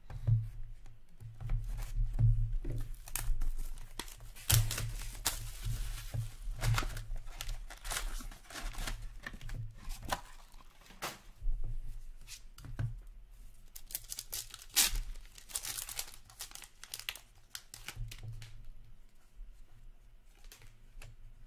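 Hand-opening of an Upper Deck Trilogy hockey card box and its packs: the box lid and pack wrappers tearing and crinkling in irregular bursts, with cards being handled. The densest rustling comes about five seconds in and again around fifteen seconds in.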